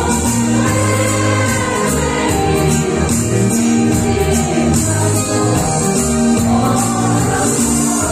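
A group singing a lively gospel hymn together, with instrumental backing, a steady bass line and a regular tambourine-like percussion beat.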